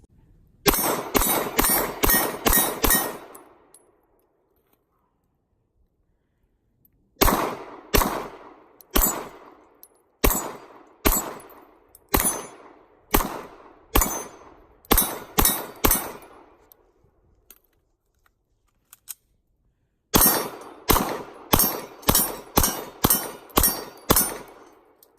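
9mm Glock 19 pistol firing in three strings of shots, each shot with a short ringing tail. About six rapid shots come near the start, then about a dozen slower shots roughly a second apart, then about ten rapid shots near the end.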